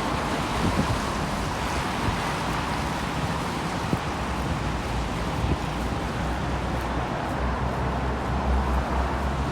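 Steady road noise from a moving motor vehicle: an even hiss over a low rumble that gets heavier in the second half.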